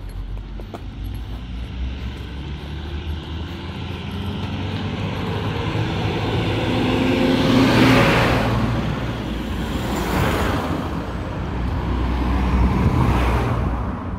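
Road traffic passing close by: a small truck's engine builds up and goes past about halfway through, its pitch falling as it passes. Two more vehicles then pass in turn, a car among them, with tyre noise on the asphalt.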